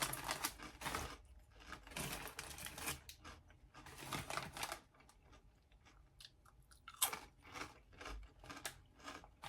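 Close-up chewing and crunching of crunchy corkscrew-shaped nacho cheese corn chips in the mouth, crisp crackles coming in clusters, dying down about halfway through and picking up again shortly after.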